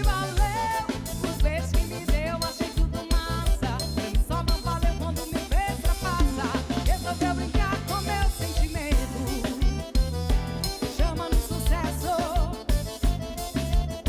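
Live band music without lyrics: a steady drum-kit beat under a wavering melodic lead line.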